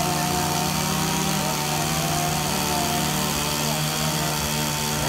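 Gas chainsaw engine running at a steady speed.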